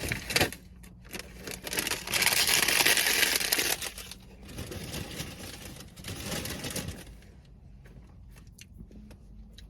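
Plastic cookie packaging crinkling as it is handled, loudest in one sustained rustle a couple of seconds in, then quieter rustles and clicks that die away.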